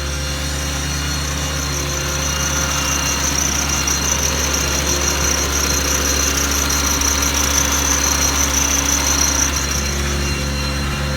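Ford V10 gas engine idling with the power take-off engaged, a high-pitched whine from the PTO-driven hydraulic system over it. The whine strengthens about two seconds in and eases off near the end.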